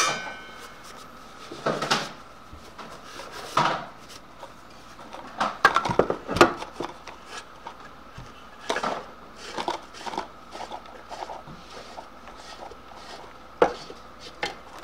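Aluminium oil-reservoir housing of a freeze-dryer vacuum pump being handled and wiped out by hand: scattered light knocks, clinks and rubbing against the metal, a cluster of them about six seconds in and a sharp click near the end.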